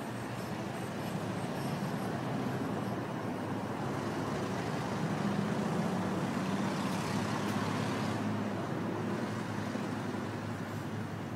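Road traffic: a steady hum of passing cars, with one vehicle swelling louder about halfway through and fading again.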